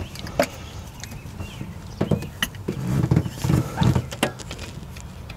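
Hands fitting a spark plug wire onto the rearmost plug of a Chevy 6.0L V8, deep among rubber hoses and wire looms: scattered sharp clicks and rubbing, with a run of louder dull knocks from about two to four seconds in.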